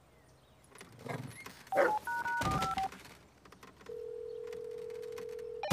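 Touch-tone phone keypad being dialed: a quick run of several beeps about two seconds in, with some soft handling noise just before. Near the end comes a steady ringing tone on the line, lasting almost two seconds, as the call goes through.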